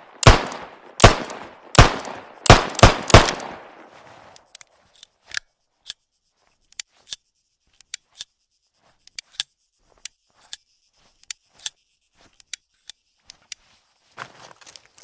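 Nagant M1895 revolver fired six times in quick succession, each shot ringing out, the last three closer together. Then a long irregular series of light sharp clicks, with a short rustle near the end.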